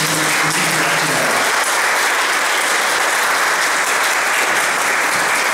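Steady applause from a church audience and choir, many hands clapping together.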